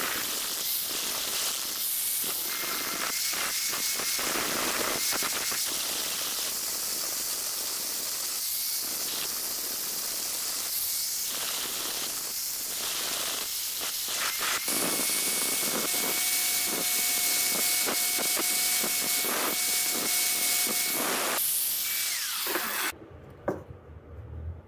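Angle grinder with a sanding disc running against a wooden knife handle, shaping it: a steady hissing grind over the motor's whine, easing and coming back as the disc lifts off and bears on the wood again. It cuts off suddenly near the end.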